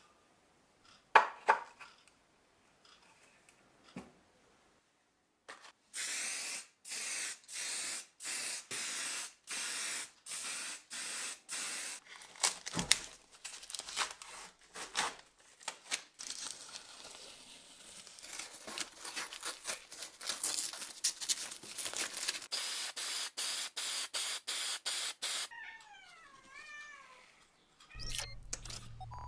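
Spraying in short hissing bursts, about two a second, in two long runs, with scattered clicks and taps between them. Near the end come a few short squeaky gliding tones.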